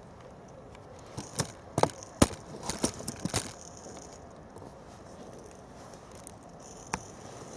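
A quick run of about ten sharp light clicks and knocks over about two seconds, then a single click near the end, over a steady background hiss.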